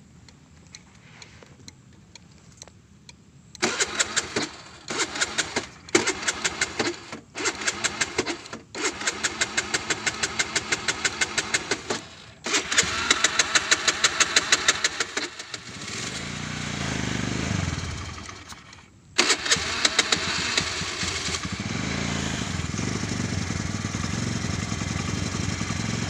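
A motorcycle's electric starter cranks in about half a dozen short, fast-ticking attempts. The engine catches briefly and dies, is cranked again, then starts and runs steadily near the end. The hard start is taken as a bad sign.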